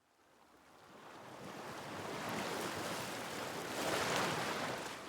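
A rushing noise like surf or wind, swelling up over about four seconds and then fading away.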